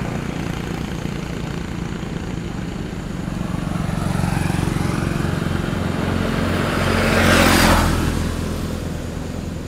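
Motorcycle engines running on a road as riders pass. A louder rushing swell of a vehicle going by close peaks about seven and a half seconds in and fades away.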